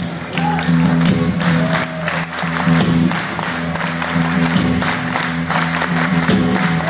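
A live rock band playing an instrumental passage between sung lines: a repeating low riff over a steady drum beat with cymbals.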